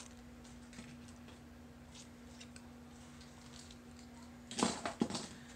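Faint clicks and rustles of jewelry and a display bust being handled, over a steady low hum. About four and a half seconds in, two short loud sounds in quick succession.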